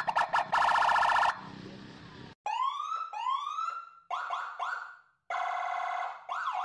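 Police car siren, switching between a fast pulsing tone and a string of quick rising whoops, with abrupt breaks where the sound cuts off and restarts.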